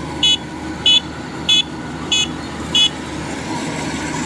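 Kubota DC93 combine harvester's warning beeper sounding five short beeps, about every two-thirds of a second, stopping about three seconds in, over the harvester's diesel engine running steadily.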